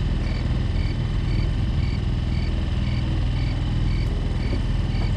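Boat's outboard motor running steadily at low trolling speed, with a faint high pip repeating about twice a second.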